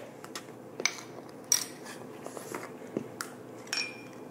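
A handful of sharp clicks and light clinks from a spice jar and a measuring spoon being handled as the jar's plastic cap comes off, the loudest about a second and a half in and one with a short ring near the end.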